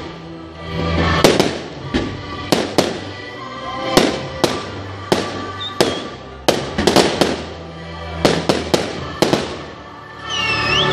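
A fireworks display fired to music: sharp bangs from shells and comets, irregular and about two a second, over the show's music. Near the end the level swells, and there are a couple of rising whistles.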